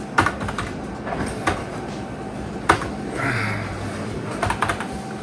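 A printer running with a low steady mechanical hum, with several sharp clicks and knocks scattered through it and a short buzz about three seconds in.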